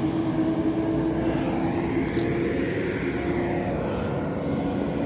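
A vehicle driving at speed: a steady engine hum under road and wind rush, the rush swelling briefly near the middle.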